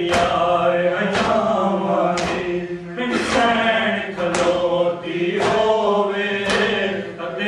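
Voices chanting a slow melody in unison, with a sharp beat about once a second.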